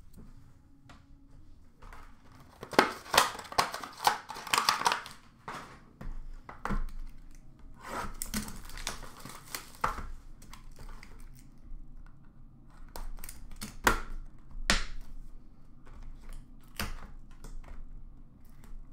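Trading cards and their packaging being handled: plastic card holders clicking and card wrappers and boxes crinkling, in several short flurries with a few sharp clicks near the end.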